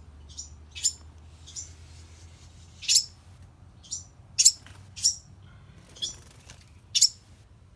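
Baby birds (fledglings) giving short, high chirps over and over, about one or two a second at uneven spacing.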